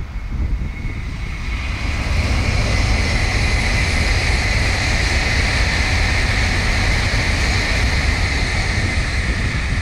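Tokaido Shinkansen N700-series bullet train passing at high speed: a rushing noise of wheels and air that swells over the first two seconds, then holds steady and loud.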